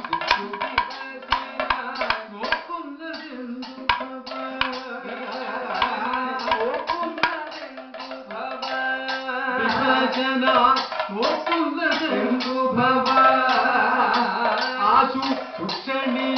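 Kathakali accompaniment: chenda and maddalam drums beaten in quick strokes with the clash of the singers' hand cymbals, under the sung pattu verses, which grow louder about halfway through.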